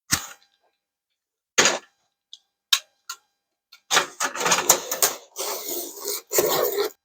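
Handling of a refrigerator door panel: a few separate sharp clicks and knocks, then about three seconds of close rattling and scraping.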